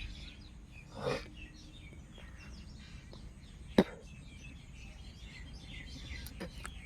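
Chorus of frogs calling after rain: many overlapping short chirping calls, with one sharp click about four seconds in.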